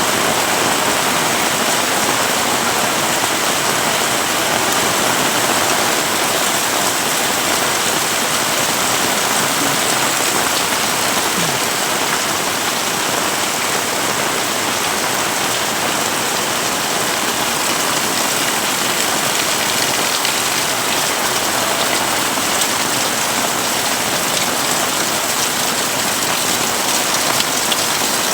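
Heavy rain falling and pattering on surfaces, a dense, steady hiss with no let-up.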